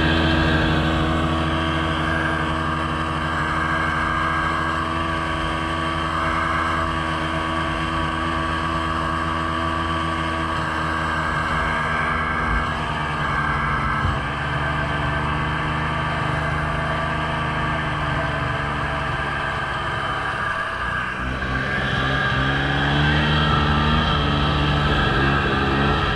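Snowmobile engine running steadily while under way. About twenty seconds in the engine note drops briefly, then climbs again and runs a little louder.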